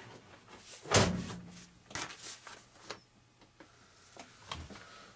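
Scattered knocks and rustles of things being handled, the loudest about a second in, another around two seconds in, then a few faint ticks.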